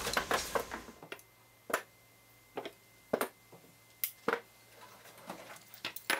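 Metal hand tools (sockets, extensions, wrenches) clinking and knocking as they are picked up off a wooden workbench, in about eight or nine separate sharp clicks spread out over several seconds.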